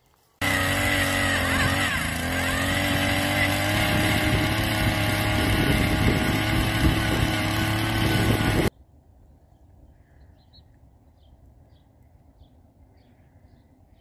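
An engine running steadily at an even speed for about eight seconds, starting and stopping abruptly.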